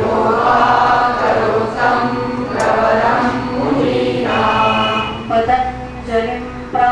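Group of voices chanting a devotional invocation in unison, led by a woman at a microphone, in held notes with short breaks between phrases.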